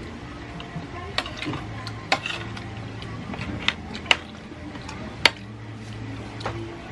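Metal cutlery scraping and clinking against a plate while scooping saucy noodles: a string of sharp clicks, the loudest about five seconds in.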